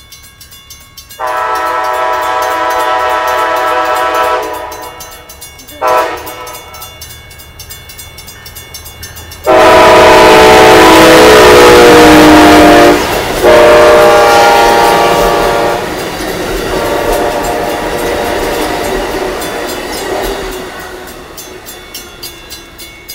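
Amtrak passenger train sounding its air horn for a road crossing as it approaches and passes close at speed: a long blast, a brief one, then two long blasts as the locomotive goes by. These last are the loudest, with the rush and rumble of the passing cars dying away near the end.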